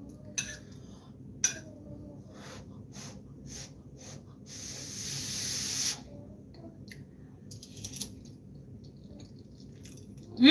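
Someone eating from a plate: light scattered clicks from a fork against the plate, and a breathy hiss of air lasting about a second and a half near the middle.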